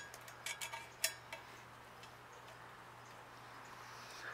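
A few small metallic clicks and clinks in the first second and a half, the loudest just after one second: a hand tool gripping and twisting a thin aluminum flat-bar bracket. Afterwards only a faint steady low hum remains.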